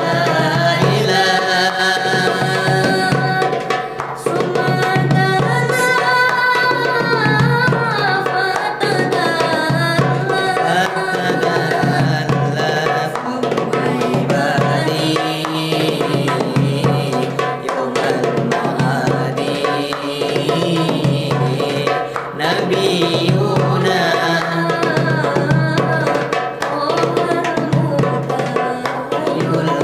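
Darbuka drumming with a sung sholawat (Islamic devotional song), the voice carrying a winding melody over a steady hand-drum rhythm.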